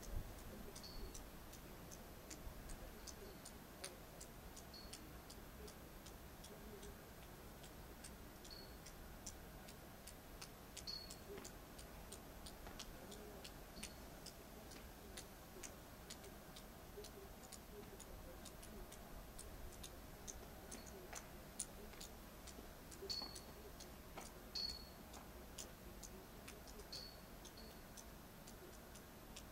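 Water dripping from icicles: faint, irregularly spaced ticks and small high plinks, with a few louder drips about two-thirds of the way through, over a steady faint hiss.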